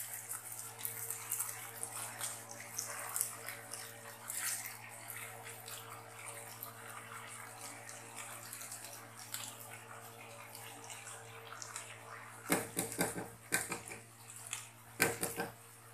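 Spatula stirring and scraping through vegetable pulao in a wok over the flame, with a faint steady sizzle and hiss under many small clicks of rice and utensil. The rice has cooked down nearly dry and is ready to be put on dum. Louder scraping comes in two bursts near the end.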